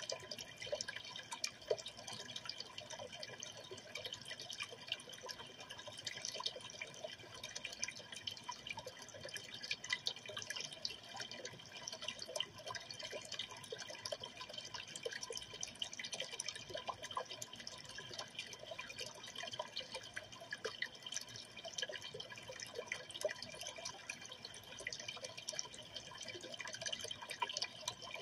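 Aquarium water trickling and dripping steadily, with many small irregular plinks and splashes.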